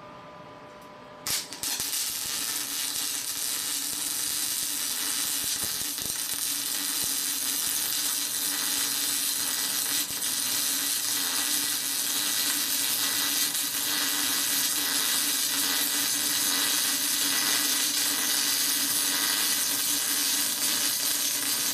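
MIG welder arc with CO2 shielding gas, welding 3–4 mm steel plate: a dense, steady hiss with fine crackle that starts abruptly about a second in and runs on evenly.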